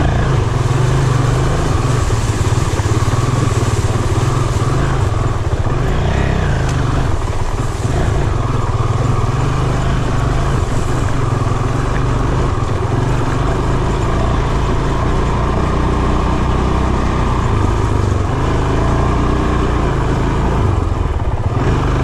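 Honda CRF450RL's single-cylinder four-stroke engine running steadily as the dirt bike rides through a shallow creek and onto a dirt trail.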